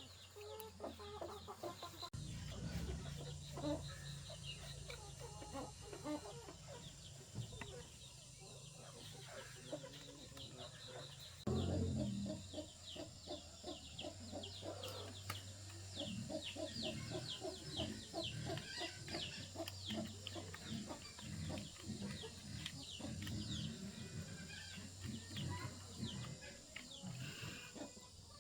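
Chickens clucking, with many quick, high cheeps crowding together in the second half, over a steady low hum that starts about two seconds in and grows louder about halfway through.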